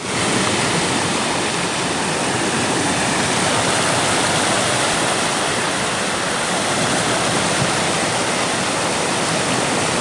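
Steady rushing of an oily waterfall, liquid cascading down without letting up.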